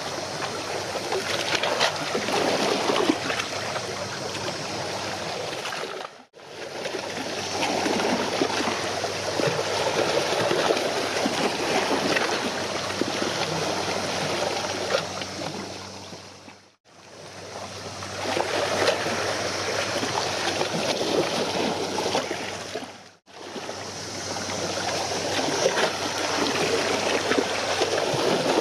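Water lapping, splashing and trickling, with a faint low steady hum underneath. It cuts out briefly three times and comes straight back.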